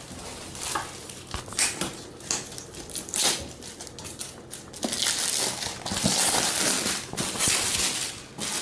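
Metallic foil gift wrap crinkling and rustling as it is pulled and torn off a cardboard box, with sharp crackles throughout that grow denser and louder about halfway through.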